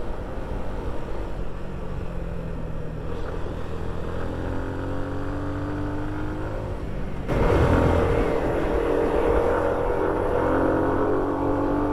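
Suzuki Gixxer SF motorcycle's single-cylinder engine under way on the road, its note climbing slowly in pitch as the bike gathers speed. About seven seconds in the sound turns suddenly louder, with more wind rush, and the engine note climbs again near the end.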